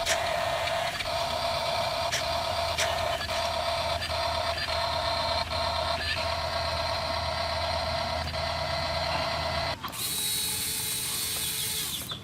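Small electric motor and plastic gearbox of a radio-controlled toy construction vehicle whirring steadily, with scattered clicks, cutting off suddenly near the end and followed by a high hiss.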